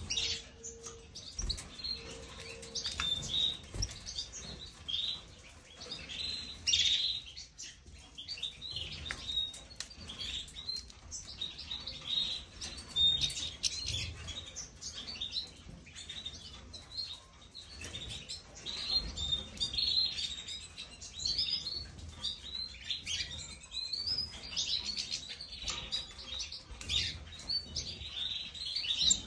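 Caged finches chirping and twittering: many short, high calls one after another, with no let-up.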